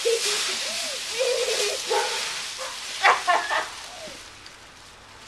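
Wordless cries and squeals of people playing in a pile of dry leaves, over the crunchy rustle of the leaves being thrashed about. A burst of loud, high squeals comes about three seconds in, then it quietens.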